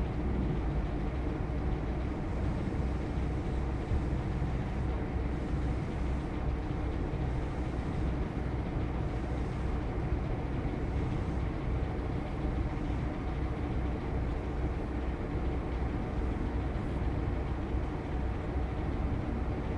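Joso Line diesel railcar's engine running steadily, a low even hum with no change in pitch or loudness.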